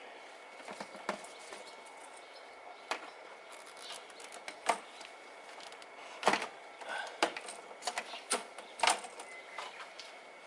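Irregular sharp clicks and light metallic knocks of hand tools and parts being handled while the valve cover is taken off a Mini Cooper S engine, most of them in the second half.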